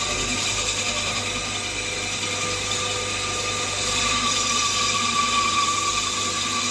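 A steady mechanical hum with a constant whine through it, like a motor running.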